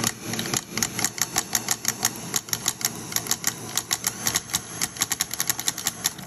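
Power drill spinning a Puch ZA50 moped motor's flywheel and bare crankshaft, a steady whir with rapid, irregular sharp clicks on top. With no cylinder fitted, the crankshaft slaps around and hits the cases as it turns.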